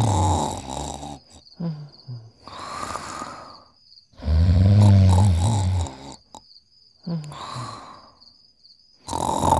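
Cartoon snoring in a steady cycle: a loud, deep rumbling snore on the in-breath, a few short falling sounds, then a softer breathy out-breath. The cycle runs twice, and the next snore starts near the end.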